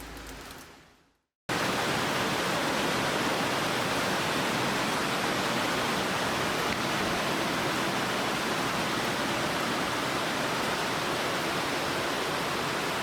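Steady rushing noise like running water, which cuts in suddenly after a brief moment of silence about a second and a half in.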